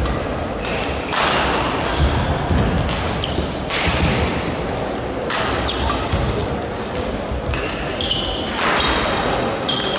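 A badminton rally: sharp racket strikes on the shuttlecock a second or two apart, with short high squeaks of shoes on the court floor between them, echoing in a large sports hall.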